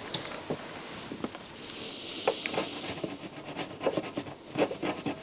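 Scattered small clicks and scratchy scraping of a screwdriver tip against a circuit board, working crusty residue off from between the components, growing busier about two seconds in.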